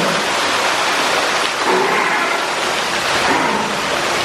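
Steady, loud rushing of water.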